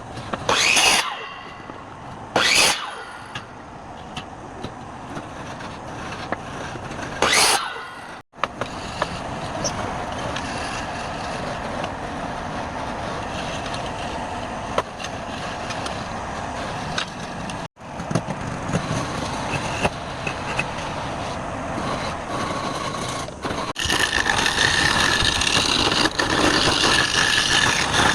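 Woodworking machinery running steadily with wood being cut, in several short segments that break off abruptly. In the first few seconds there are three short, loud hissing bursts, and the last few seconds are louder with a steady whine.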